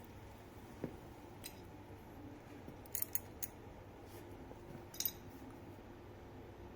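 Scattered light metallic clicks and clinks of a steel hex key working on the bicycle's crank bolt, about half a dozen sharp ticks, the loudest a quick cluster about three seconds in and a pair about five seconds in.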